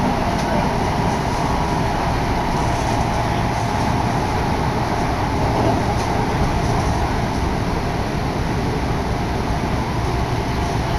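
Odakyu Odawara Line commuter train running at speed, heard from inside the carriage as a steady rumble and rush, with air blowing in through an open window.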